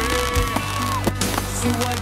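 Music with held tones and a steady bass, over a few sharp bangs and crackles of aerial firework shells bursting.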